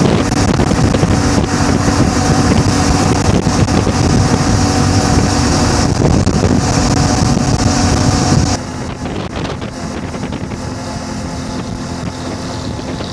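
CF Moto 450 MT parallel-twin motorcycle engine running under way, with wind buffeting the microphone. About eight and a half seconds in the sound drops suddenly and then runs on more quietly and steadily.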